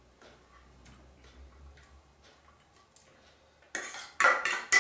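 Faint scattered light ticks, then near the end a quick run of loud metallic scraping and clinking: a knife scraping chopped onion out of a small stainless-steel bowl into a steel mixing bowl.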